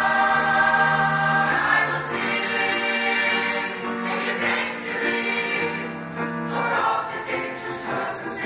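Mixed-voice high school chamber choir singing a gospel anthem with piano accompaniment, holding one chord for about two seconds and then moving through shorter chords.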